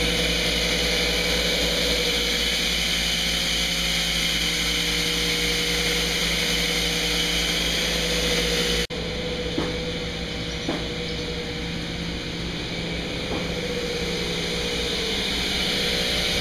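Sawmill machinery running steadily, with a constant hum under a strong high hiss. The noise drops abruptly about nine seconds in, then carries on a little quieter with a few sharp wooden knocks.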